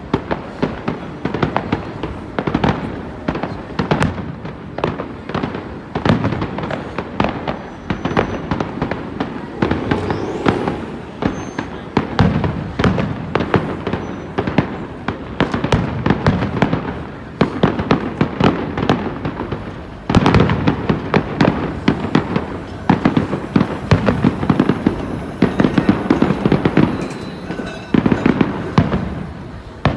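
Fireworks display: a continuous barrage of rapid bangs and crackling shells, growing louder about two-thirds of the way through.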